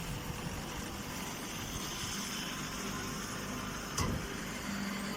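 Straw baler machinery running with a steady hum, and a single sharp knock about four seconds in.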